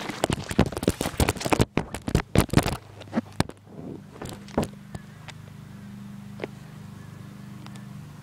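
Phone handling noise: a quick flurry of knocks and scrapes as the microphone bumps and rubs against woven fabric for the first few seconds, then a few single clicks over a steady low hum.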